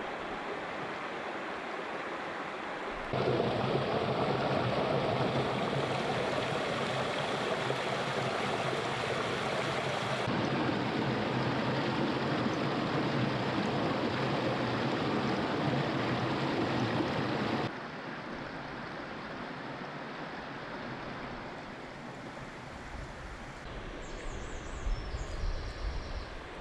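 River water rushing, a steady noise without any tone. It gets suddenly louder about three seconds in and drops back just as suddenly about fifteen seconds later.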